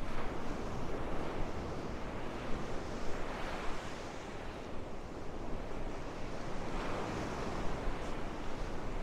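Small surf breaking and washing up the sand, swelling about every three to four seconds, with wind rumbling on the microphone underneath.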